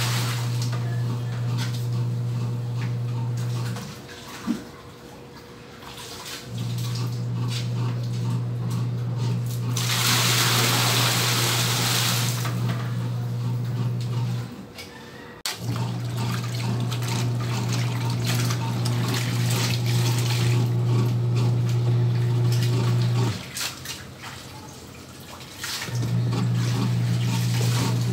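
Washing machine motor humming steadily through its wash cycle in runs of several seconds, stopping for two or three seconds between runs. Loud splashing of poured water about ten seconds in, and a single knock shortly after the first stop.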